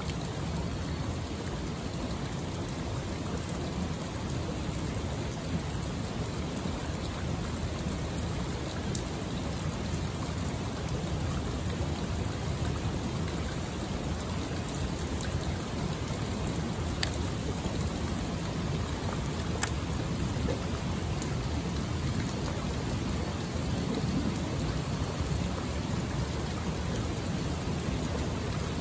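Steady rush of water spilling over a rock ledge into a river pool, with a few faint clicks about halfway through.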